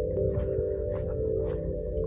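Ambient relaxation music of steady, held singing-bowl-like tones.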